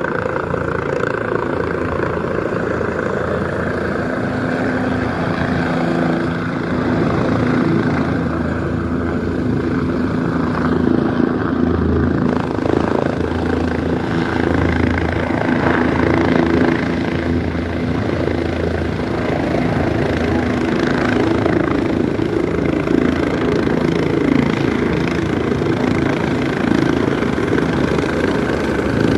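Helicopter running steadily, its engine and rotors giving a constant loud drone made of several steady low tones.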